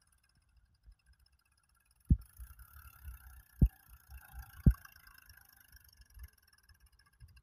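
Tractor straining to haul a loaded sand trolley through soft sand, its front wheels lifting off the ground: a low engine rumble with three heavy low thumps, about two, three and a half, and four and a half seconds in.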